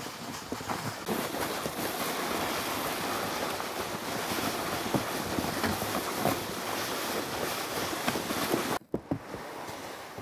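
Steady rushing noise of a person walking through snow towing a loaded plastic sled, with crunching steps and wind on the microphone. It drops and turns quieter about nine seconds in.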